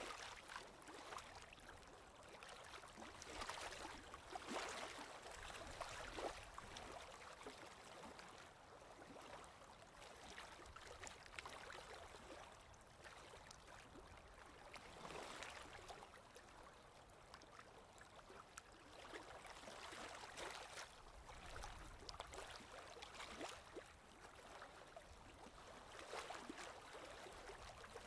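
Faint, irregular scratching swishes of strokes being drawn on paper, coming and going in uneven bursts.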